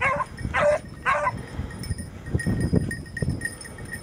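Hunting dog barking three times in quick succession while on a scent trail. Then rustling and crunching in the scrub, with a faint high ringing repeating in the background.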